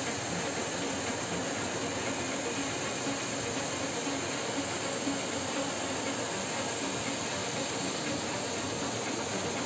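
Steady engine and airflow noise inside a Russian fighter jet's cockpit in flight: an even hiss with no distinct pitch and no change in level.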